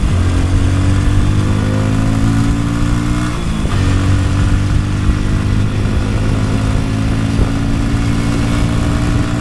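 Motorcycle engine running under way as the bike rides off, its note dipping and resuming at the start and again about three and a half seconds in, as with gear changes.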